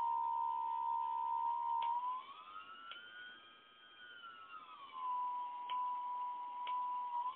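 CF2822 brushless outrunner motor on an XXD HW30A speed controller, whining steadily as it runs. Its pitch rises a little after two seconds in, holds, and falls back around five seconds. A few sharp crackles, about one a second, break through the whine: the strange crackling noise the setup is showing, cause unknown.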